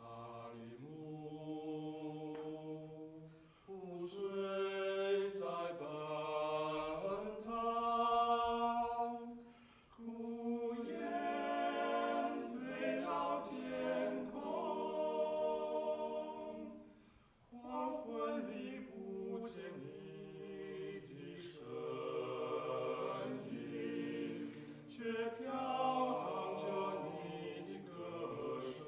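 Male vocal quartet singing a cappella in close harmony, in several sustained phrases with short breaths between them.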